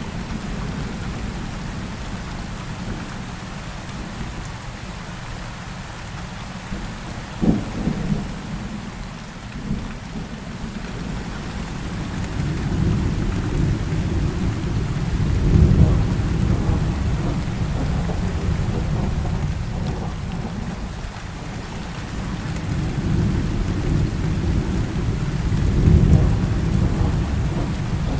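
Heavy rain falling steadily, with thunder rumbling low. The rumbles swell twice, about halfway through and again near the end, and a sharp crack comes about a quarter of the way in.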